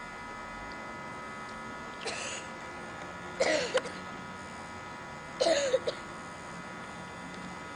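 Steady electrical hum with several thin whining tones, broken three times by short voice sounds with a bending pitch, the second and third the loudest.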